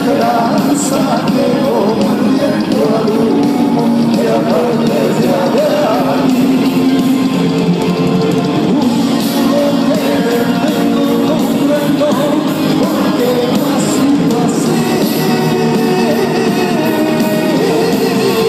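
Andalusian rock band playing live: lead vocals over electric guitars and drums, loud and steady throughout.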